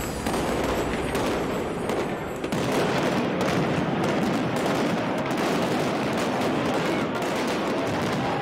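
Fireworks going off in a dense, continuous barrage of rapid crackling bangs, growing louder about two and a half seconds in.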